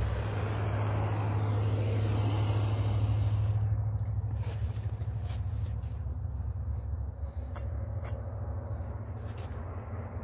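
Gas torch flames: a propane hand torch hisses as it lights a brass oxy-fuel cutting torch. About four seconds in the hiss drops away, leaving the cutting torch's lower flame rumble with a few sharp clicks.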